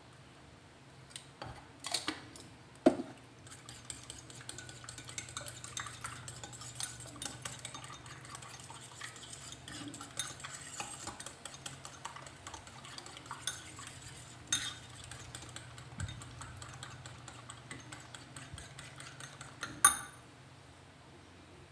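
A small spoon clinking against a salt jar and bowl a few times, then a metal utensil beating eggs in a ceramic bowl: a fast, steady run of light clinks and scrapes, ending with one loud clink near the end.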